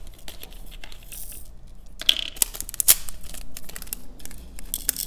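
Small crystal rhinestones clicking and rattling against a plastic triangle tray and a clear plastic compartment box as they are tipped and picked by hand. The clicks come in quick flurries, busiest about two seconds in and again near the end.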